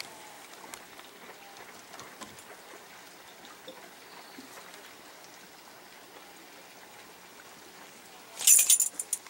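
Small-boat water ambience: faint lapping and trickling of calm water against the hull with scattered light ticks. About eight and a half seconds in comes a brief loud burst of sharp clicks.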